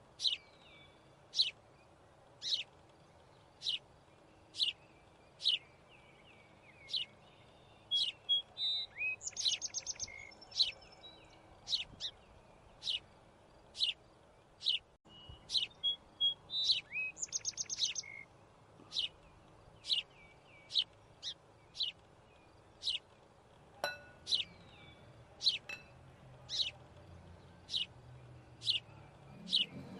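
A bird chirping: one short falling call repeated roughly once a second, broken twice by a quick rapid trill.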